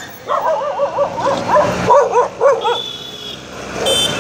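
Stray dog whining and yelping in quick, wavering cries while begging for food, followed by a couple of short high squeaks.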